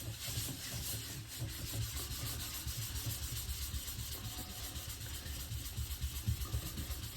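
Coarse rubbing compound being rubbed over a resin-blended fiberglass tub surface: a steady scrubbing rasp as the paste, like 1500-grit abrasive, smooths the blend edge.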